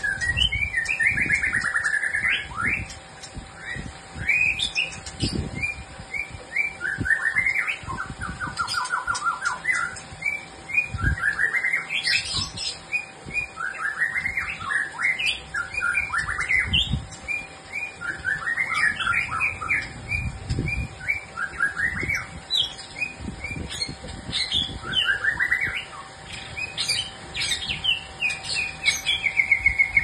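Caged songbird singing phrase after phrase of quick chirps and trills, each a couple of seconds long, rising and falling in pitch, with short pauses between them. Low thuds come and go underneath.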